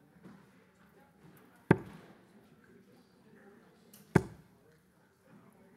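Two steel-tip darts striking a Winmau sisal bristle dartboard about two and a half seconds apart, each a single sharp thud that dies away quickly.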